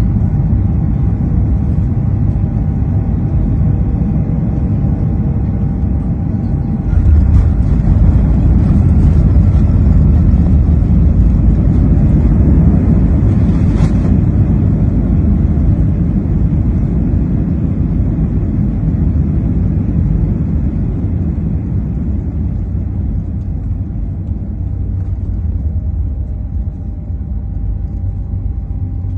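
Boeing 737 cabin noise heard from a window seat during landing: a steady low rumble of engines and airflow. It jumps sharply louder about seven seconds in and stays loud for over ten seconds, typical of touchdown and reverse thrust, then eases off near the end as the jet slows.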